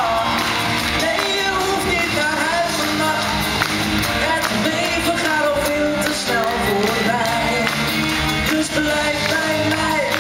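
A man singing a pop song live into a handheld microphone over loud backing music, amplified through the sound system of a large hall.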